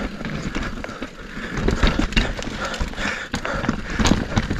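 Mountain bike riding over a rocky, rooty trail: tyres rolling and crunching over stones, with the bike rattling and knocking irregularly.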